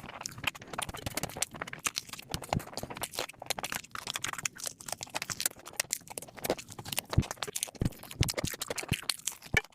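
Close-miked eating: a steady run of irregular wet clicks and smacks of chewing, with a few deeper knocks in the last few seconds.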